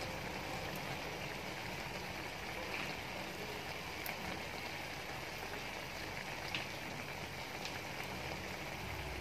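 Squid simmering in its juices in a wok, the liquid bubbling and hissing steadily with a few faint pops.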